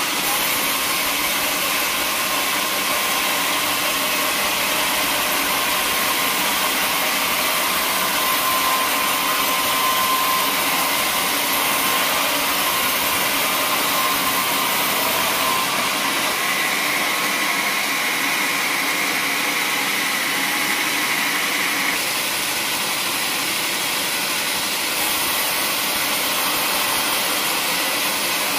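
Band saw mill running with its blade cutting lengthwise along a squared teak beam: a steady, even noise of blade and machine.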